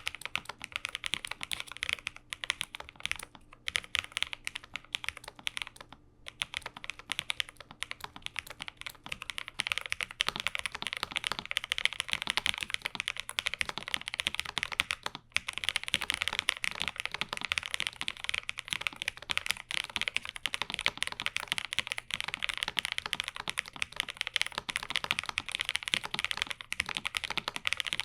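Typing on a Lofree Flow Lite low-profile mechanical keyboard with Kailh full-POM switches in an ABS case, a creamy clack of keystrokes. Slower steady typing at first, turning faster and denser about ten seconds in.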